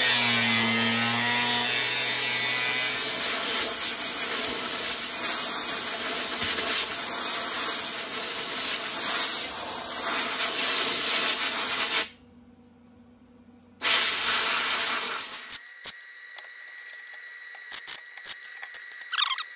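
Handheld angle grinder grinding the edge of a sheet-steel door patch panel, a steady harsh grinding whose whine drops in pitch at the start. It stops about twelve seconds in, runs again for about two seconds, then cuts off, leaving a few light clicks.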